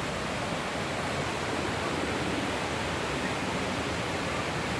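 Waterfall, water falling and rushing in a steady, even noise with no breaks.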